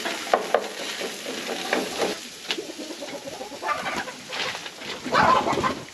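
Meat sizzling on a grill while chickens cluck, with a louder burst of clucking about five seconds in.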